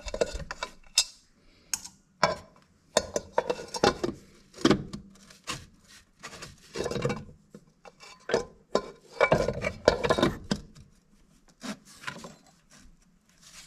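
Snowmobile recoil starter's pressed-metal housing being worked into place against the engine by hand: irregular clinks, knocks and scraping of metal on metal, in uneven bursts.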